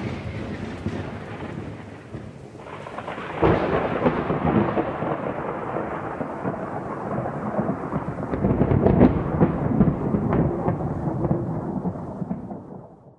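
Rolling thunder rumble with a crackling, rain-like hiss. It swells again about three and a half seconds in and fades away near the end.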